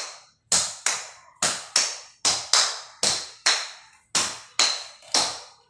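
Sharp smacks of a small ball being hit back and forth in a fast rally, about a dozen in quick pairs, each with a short echo off the walls of a small room.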